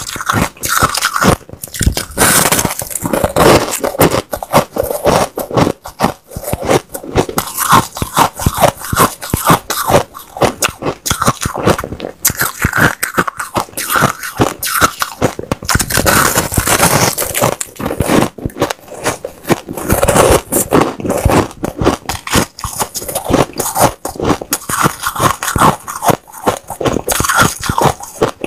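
A person biting into and chewing a lump of white, powdery ice: a rapid, continuous run of crisp crunches.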